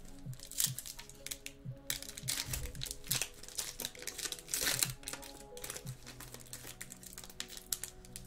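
Foil wrapper of a baseball trading-card pack crinkling and tearing as it is opened and peeled back by hand, in an irregular run of crackles that is loudest a little before five seconds in.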